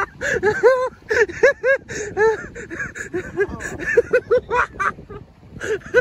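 A man laughing heartily, a long run of short 'ha' bursts in quick succession with brief pauses between runs.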